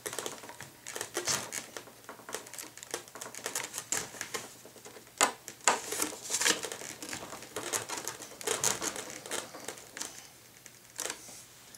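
Small screwdriver tightening the screws that hold the plastic wing struts of a Parkzone Sport Cub RC plane: irregular light clicks and ticks of the driver, screws and strut fittings, with some handling of the foam wing. A few sharper clicks stand out about halfway through.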